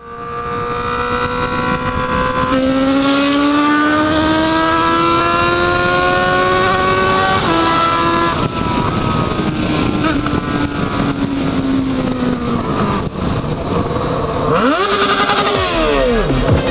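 Yamaha XJ motorcycle's inline-four engine under way, its pitch climbing steadily under acceleration, dropping sharply at a gear change about seven and a half seconds in, then falling slowly as the throttle is eased. Near the end the revs swing quickly up and down in sharp arcs, over a steady rush of wind on the microphone.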